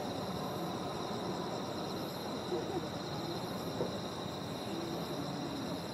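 Steady chorus of crickets, a continuous high trill with a fine, even pulse.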